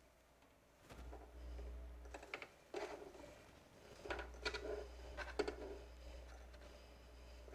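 Singer 4423 sewing machine being worked: scattered clicks and knocks of its parts, over a low steady hum that starts about a second in, stops, and comes back about four seconds in.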